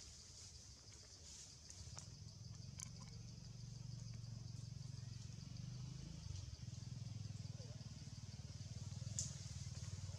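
A low engine hum that grows louder after about two seconds, over a steady high-pitched hiss, with a few faint clicks.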